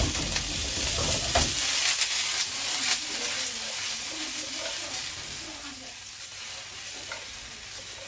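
Green beans and peas sizzling in a frying pan of hot olive oil and garlic, with a few knocks in the first seconds as the pan is tossed. The sizzle fades toward the end.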